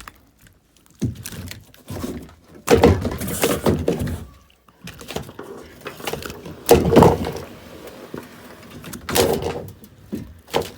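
Irregular thumps and knocks in four loud clusters, as a hooked largemouth bass thrashes against the kayak while it is being landed.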